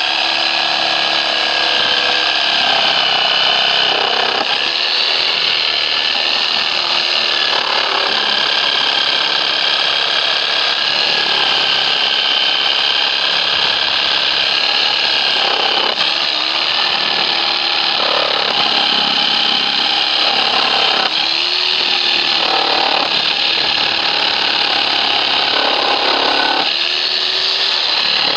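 Harbor Freight reciprocating saw running with its blade worked between pallet boards, cutting through the nails that hold them. The motor pitch dips under load and comes back up several times over the stretch.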